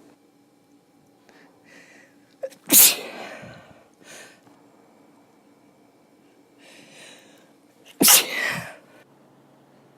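A woman sneezing twice, loudly and unstifled, about five seconds apart. Each sneeze is preceded by a drawn-in breath.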